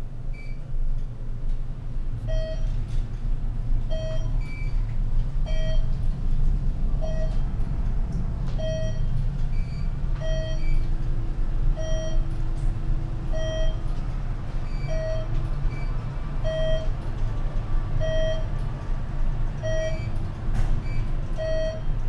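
ThyssenKrupp glass traction elevator car descending with a steady low rumble of travel. A short electronic beep sounds evenly about every one and a half seconds, once for each floor the car passes.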